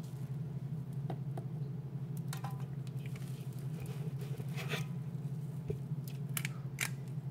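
Metal squeeze-handle scoop clicking and scraping as it works meatball mixture in a metal bowl: scattered short clicks several times over, above a steady low hum.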